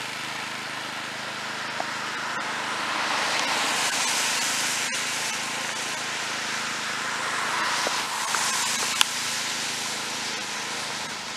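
Hiss of tyres on wet pavement, swelling twice as vehicles pass, over a faint steady engine hum.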